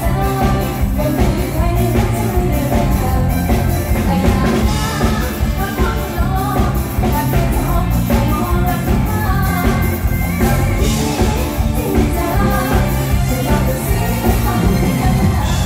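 Live band music with a steady drum beat and a woman singing into a microphone over it.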